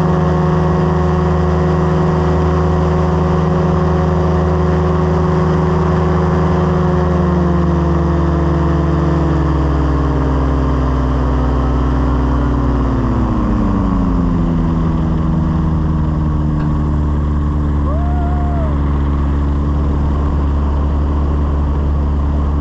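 Small aircraft engine and propeller running steadily in flight, heard from on board. From about a third of the way in, the engine note slides down over several seconds as the engine slows, then holds steady at the lower pitch.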